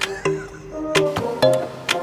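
Background music: a tune of short, clearly pitched notes in a steady rhythm.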